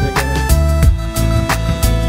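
Instrumental background music with a bass line, held notes and a steady drum beat.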